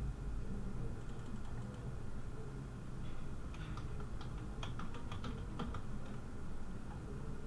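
Typing on a computer keyboard: a short run of key clicks in the middle, over a steady low background noise.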